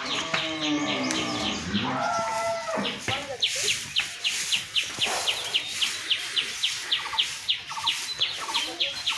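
Cattle mooing, a few drawn-out calls in the first three seconds, over a high, rapid chirping that repeats about five times a second.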